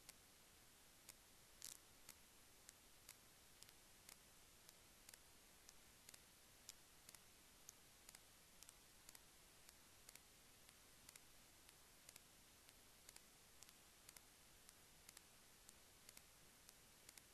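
Faint computer mouse clicks, two or three a second at uneven spacing, over a steady hiss, with one slightly louder click a little under two seconds in.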